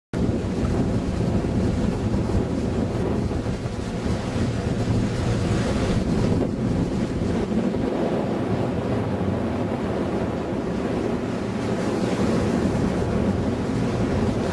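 Wind buffeting the microphone over rushing water on a catamaran under way, with a low steady hum underneath. It starts suddenly and runs on evenly.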